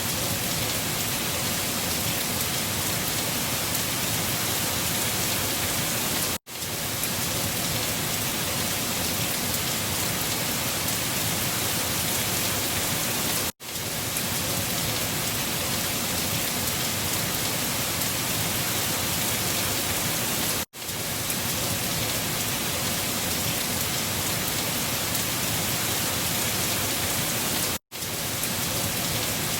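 Steady, dense storm noise of wind and rain, cutting out for a split second four times at even gaps of about seven seconds.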